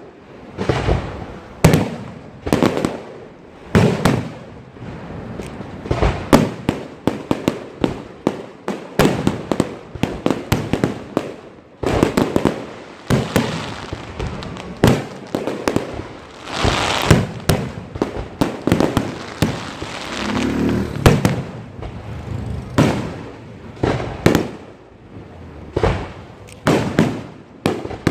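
Fireworks going off: many sharp bangs in quick, irregular succession, some running together into longer crackling clusters, each trailing off in a short echo.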